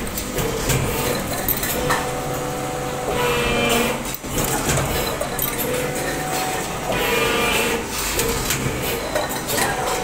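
Hydraulic deep-draw press cycling: a pitched whine rises for about a second every two to three seconds over a steady machine hum. Stainless steel bowls clink as they are stacked.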